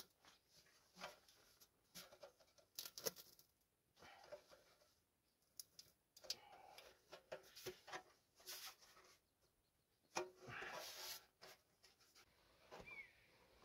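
Faint, scattered clicks and rustles of a metal stovepipe with a flexible corrugated section being handled, with a longer scraping rustle about ten seconds in.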